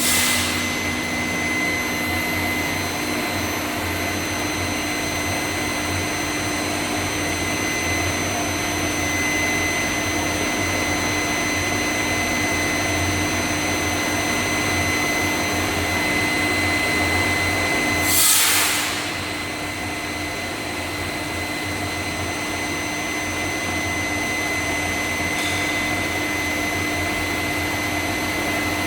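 Rebar induction heating furnace running: a steady mechanical drone with an electrical hum and a high, steady whine. A short, sharp hiss rises and dies away about 18 seconds in.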